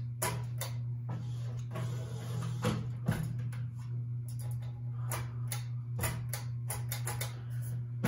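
Ceiling fan running with a steady low motor hum, with irregular clicks and taps as a hand knocks against its spinning blades and housing.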